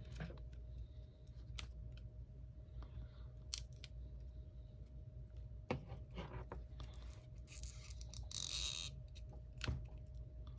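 Faint scattered small clicks and scraping as the adhesive pull strip under an iPhone battery is worked loose, with a louder rasping tear lasting about a second near the end. A faint steady hum sits underneath.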